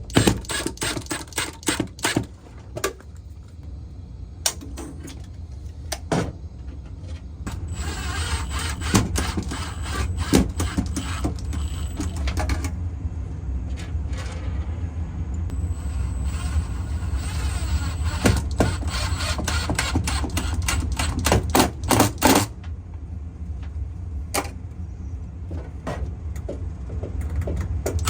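A power drill driving screws. It gives bursts of rapid clicking, and its motor runs in two longer stretches, from about 8 to 12 seconds in and from about 14 to 22 seconds in.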